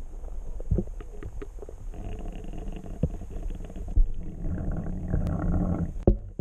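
Muffled low rumble of water heard through an underwater GoPro in its waterproof housing, with a few sharp knocks and clicks scattered through it, the loudest near the end.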